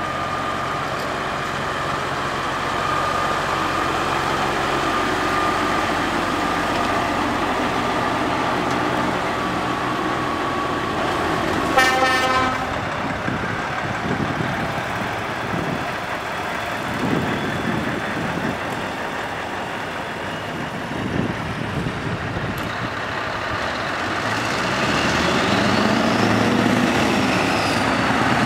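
Heavy diesel trucks driving slowly past one after another, engines running. About twelve seconds in, a truck air horn gives one loud blast of under a second. Near the end an engine revs up and back down.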